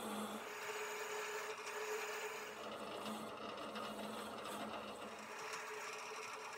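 Drill press running with a wire wheel in its chuck, scrubbing grime off a wood clamp's metal threaded spindles and then its pivots: a steady motor hum under a rough, scratchy hiss of wire on metal.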